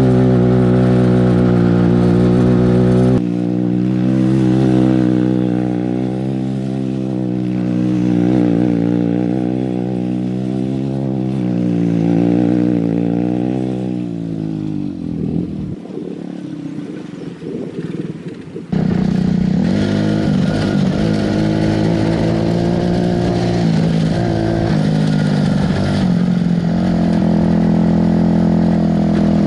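A small go-kart engine runs and revs as the kart slides its off-road tyres around on dirt, the engine note rising and falling. A little past halfway the note drops away into a rough, noisy sound for a few seconds, then the engine comes back abruptly, running fairly steadily.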